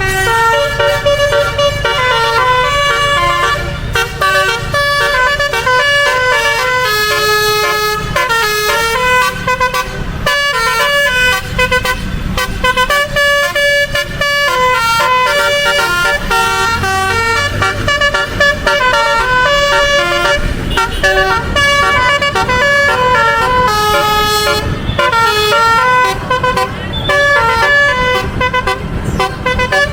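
Bus 'telolet' multi-tone horn playing long runs of quick, stepping melodic notes, with low engine and road noise underneath.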